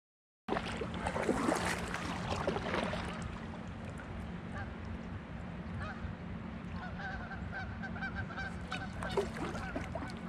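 A flock of geese honking, with many overlapping calls, more of them in the second half.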